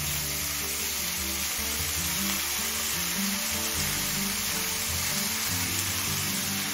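Hilsa fish heads, spices and freshly added shredded ash gourd frying in oil in a kadai: a steady sizzle. Background music with stepped low notes plays under it.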